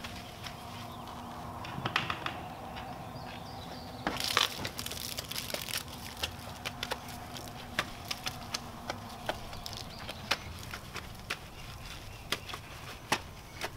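Wash mitt scrubbing a soapy car wheel by hand: irregular sharp clicks and crackles, with a louder rustling burst about four seconds in.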